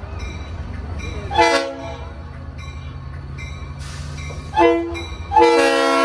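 Santa Fe diesel locomotive's air horn sounding as it approaches a grade crossing: two short blasts, then a longer, louder blast starting near the end, over a steady low rumble.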